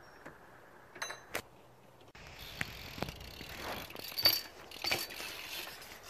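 Nearly quiet for about two seconds, with a few faint clicks. Then a BMX bike rolls on a concrete skatepark surface, with a series of sharp clicks and knocks from the bike.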